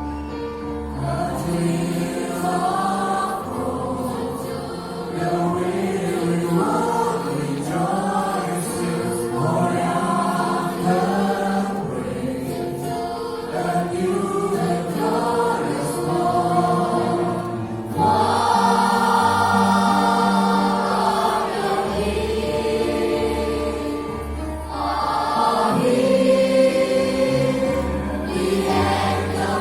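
Children's choir singing a Christian hymn in unison over a keyboard or organ accompaniment with a sustained bass line; the singing swells louder about eighteen seconds in.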